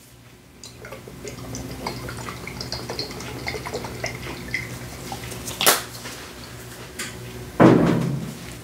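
Worcestershire sauce shaken in dashes from its bottle onto ground beef in a bowl: small drips and taps. A sharp click comes a little before six seconds in, and a louder bump near the end.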